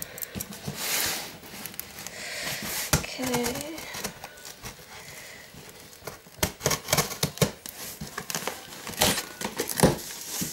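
A cardboard shipping box being opened by hand: packing paper crinkling and crumpling, with dense quick crackles in the second half.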